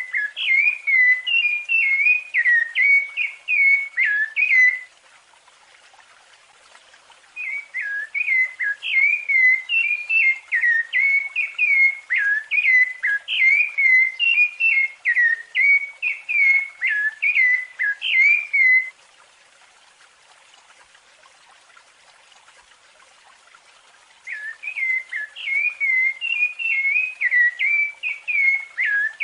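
Rufous-bellied thrush (sabiá-laranjeira) singing its fluted song: quick runs of clear whistled notes, in three bouts with pauses of a few seconds between them.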